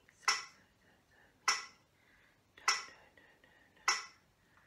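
Metronome clicking a slow, even beat, about one click every 1.2 seconds (roughly 50 beats a minute), four clicks in all.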